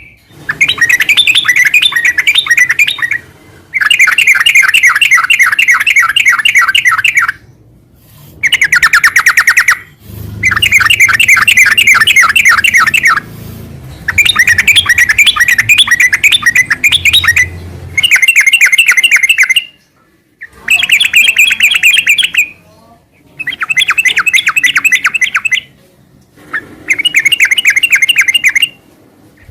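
Yellow-vented bulbul (trucukan) singing a loud, nonstop chattering song: about nine bursts of rapid repeated notes, each a few seconds long, with short pauses between.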